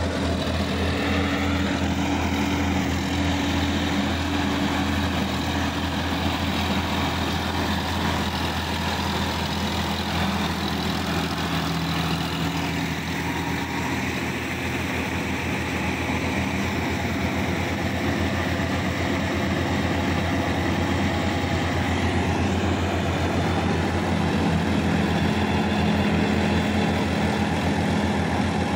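Diesel farm tractor engine running steadily with a low throb while working a wet paddy field.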